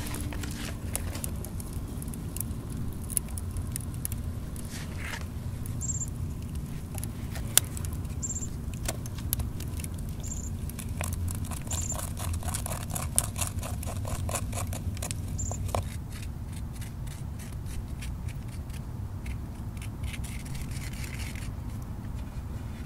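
A wooden stick stirring melted glue in a small fired-clay pot, scraping and ticking against the pot's sides about three or four times a second. The ticks thin out about two-thirds of the way through, over a low steady background rumble.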